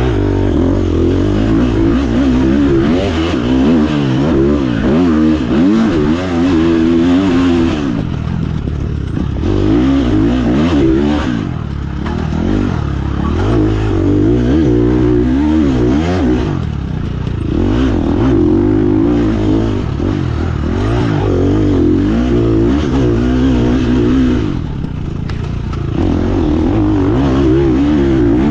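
Off-road dirt bike engine heard from onboard the bike, revving up and down as it is ridden hard through a race course. The throttle is chopped several times and the engine comes back on the gas each time.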